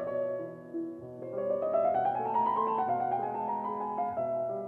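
Solo piano music, a melody whose notes climb over the first half and ease back down.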